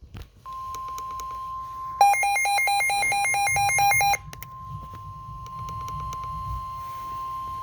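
NOAA Weather Radio warning alarm tone, a steady high beep near 1 kHz, received on a Midland WR-120 weather radio; it announces a severe weather warning. For about two seconds, starting two seconds in, a louder, lower pulsing beep sounds over it, with faint static clicks throughout.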